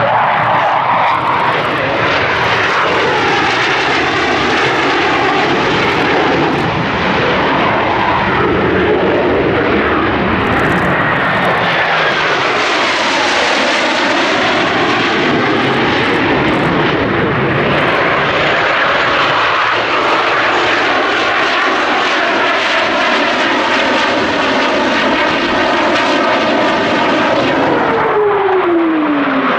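Jet engines of several F/A-18 Hornets flying in formation make a continuous, loud rushing noise whose tone keeps shifting as the jets move across the sky. A whine falls in pitch partway through and again near the end as jets go past.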